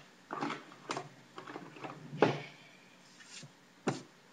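A handful of irregular knocks and clicks of objects being handled on a hard surface, the sharpest about two seconds in, with a short rustle after it.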